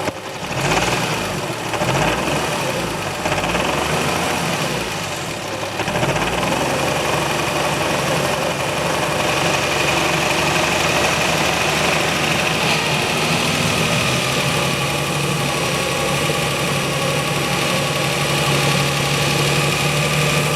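Toyota 1JZ inline-six engine driving a Nissan 350Z gearbox, brought up from idle and then held steady at around 1500 rpm with the clutch pedal pressed in. The revs settle about six seconds in.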